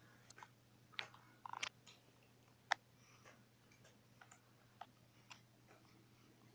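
Faint scattered clicks and light taps of handling, with one sharper click a little under three seconds in, over a faint steady low hum.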